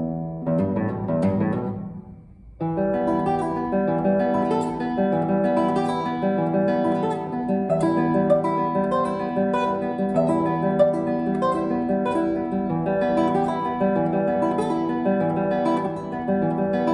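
Solo classical guitar playing: a chord rings out and fades over about two seconds, then after a short pause a steady stream of plucked notes and chords resumes.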